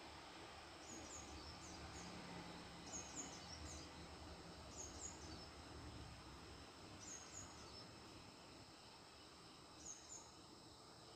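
Faint background noise with short high chirps, two or three at a time, repeating every two seconds or so.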